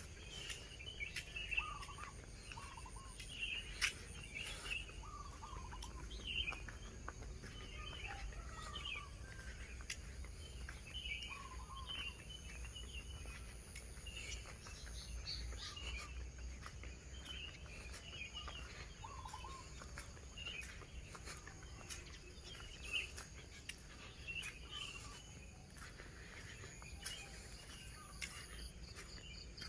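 Birds calling and chirping, many short calls scattered throughout, over a steady high trill of insects, with occasional faint clicks.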